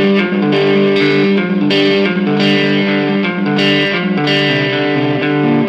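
Intro music led by an electric guitar with distortion, sustained chords.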